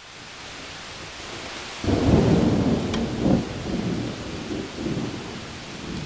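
Thunderstorm: a steady hiss of rain, with a rumble of thunder breaking about two seconds in and rolling in several swells for about three seconds.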